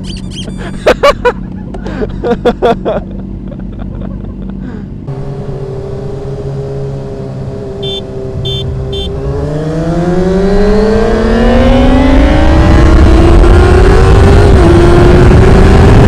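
Sport motorcycle engine, heard from the rider's seat: a few short loud blips in the first three seconds. Then the engine runs at a steady note and, from about nine seconds in, accelerates, its pitch climbing as wind noise builds.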